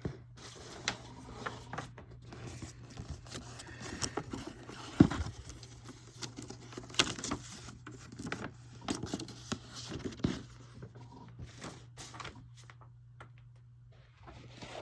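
Handling noise as a folded paper poster is taken out of a disc box set: paper rustling and crinkling, scrapes, and light clicks and knocks of cardboard and plastic packaging, with one sharper knock about five seconds in.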